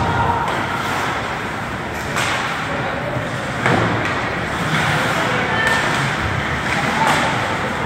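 Ice hockey play in a rink: skates scraping the ice and sticks and puck clacking, with a few sharp knocks, the loudest about four seconds in, and scattered shouts from players and spectators.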